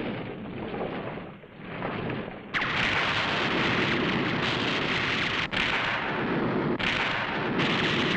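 Film explosion sound effects: a rushing rumble that fades over the first two seconds, then a sudden loud blast about two and a half seconds in that carries on as a heavy roar of noise, cut off and restarted abruptly a few times near the end.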